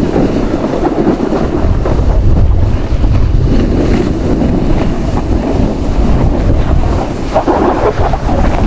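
Wind buffeting the microphone of a camera carried by a snowboarder riding downhill, with the board sliding and scraping over packed snow underneath. The noise is loud and steady throughout.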